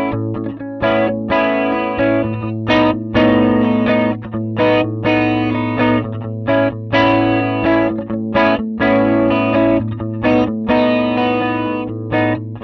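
Electric guitar strumming chords through the TC Electronic SCF Gold chorus pedal set to chorus mode. The chords come in a steady rhythm with short breaks between them, over a low note that rings on underneath.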